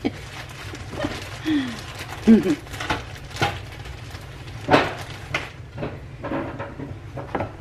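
Kitchen background sound: a steady low hum with a faint hiss, a few sharp clicks, and a couple of brief pitched squeaks.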